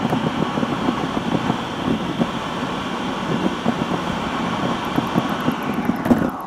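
Steady road and tyre noise inside the cabin of a Tesla electric car cruising at about 20–25 mph, with no engine sound. The sound drops away right at the end.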